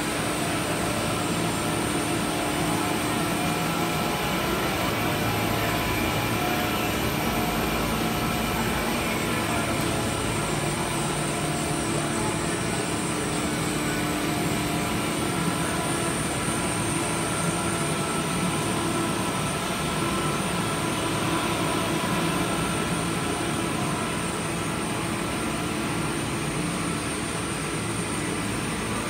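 Steady drone of a bank of large supercritical CO2 extraction machines running together, with several constant tones mixed into the even machine noise.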